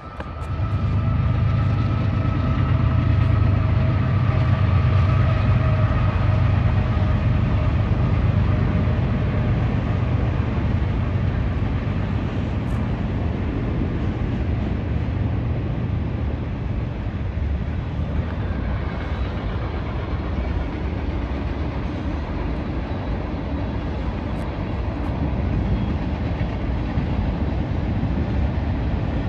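Freight train passing close by: a loud, steady low rumble of diesel locomotives and rolling cars. During the first several seconds a steady higher tone sits over the rumble and fades away.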